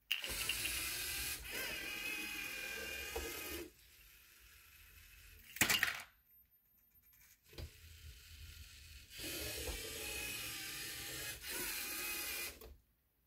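LEGO Mindstorms EV3 robot's motors whirring with a steady geared whine as it drives, in two long runs with a quieter stretch between them. A brief sharp clatter comes about halfway through, as the scoop arm tips a ball into a cup.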